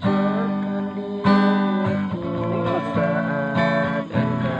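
Acoustic guitar strummed in chords, a fresh strum roughly every second, with a man's voice singing along.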